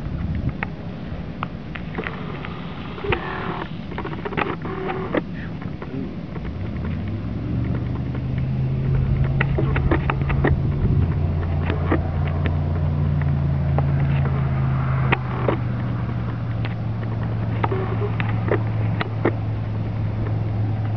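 An engine runs with a steady low drone that grows stronger about seven seconds in, with scattered sharp clicks and taps over it.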